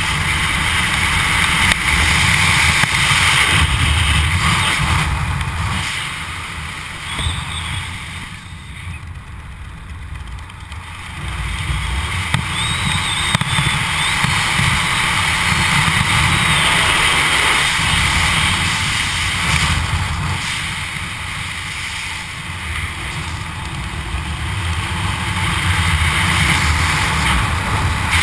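Wind rushing over a skydiver's camera microphone, a loud steady rush that eases off for a few seconds about a third of the way in, then builds again.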